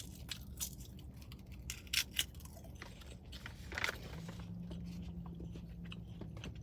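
A person chewing and crunching a crisp snack close to the microphone, with scattered short crackles.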